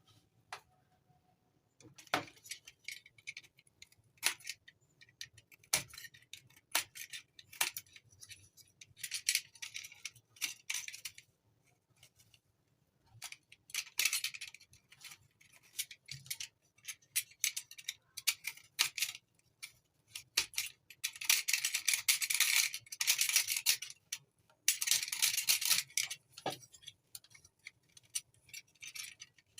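Irregular clicks and light rattling of small hard parts being handled, with a few longer spells of hissy scraping past the middle.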